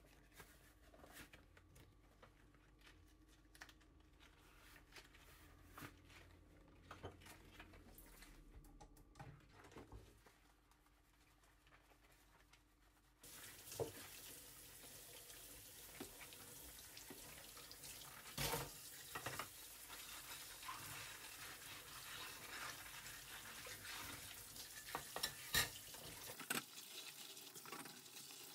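Kitchen tap water starts running into the sink about halfway through and keeps going, with a few sharp clinks as washed ceramic dishes are set down on a roll-up dish rack over the sink. Before the tap opens there are only faint scattered clicks of handling.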